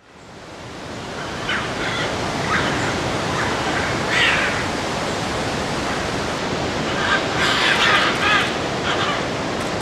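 Scarlet macaws giving harsh squawking calls: several short calls spread through the first half, then a denser run about seven to eight and a half seconds in. Under them is a steady rushing background noise that fades in at the start.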